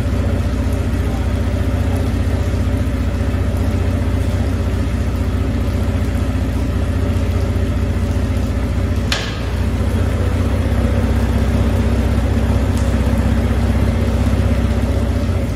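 Twin Suzuki 350 V6 outboard motors idling steadily on flushing water, with a brief dip in level and a click about nine seconds in.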